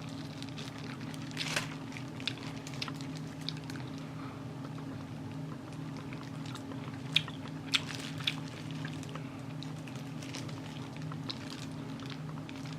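A person chewing and biting into Korean yangnyeom fried chicken close to the microphone: scattered crisp crunches and wet clicks, three sharper ones a little past the middle, over a steady low hum.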